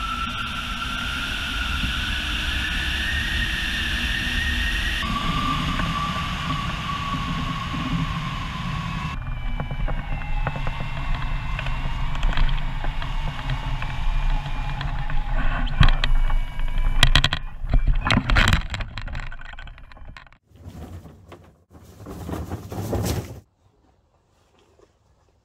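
Wind rushing over the microphone of a hang glider in flight, with a thin steady tone that slowly rises in pitch. After a cut, wind on the ground is broken by a run of loud knocks and thumps as the glider is handled.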